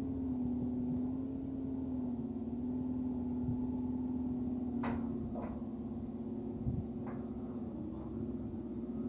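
Steady mechanical hum of a car transporter truck running, with a few light metallic clinks about five and seven seconds in.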